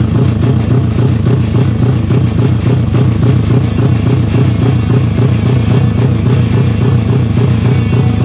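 Suzuki Raider drag bike's carburetted four-stroke engine idling on its stand through an open racing exhaust, with a steady loping beat of about four pulses a second and no revving.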